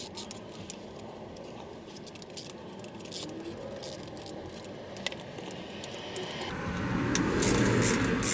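A small screw being backed out of a plastic car door switch panel with a Phillips screwdriver: light metallic clicks and rattles. In the last couple of seconds this gives way to louder rustling handling noise.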